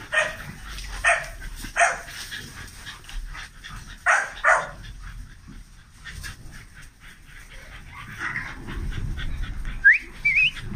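Dogs giving short, sharp, high-pitched barks, about five of them in the first five seconds, then a brief rising whine near the end.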